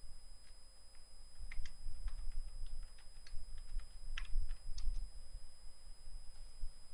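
Typing on a computer keyboard: a few seconds of irregular key clicks as a login password is entered.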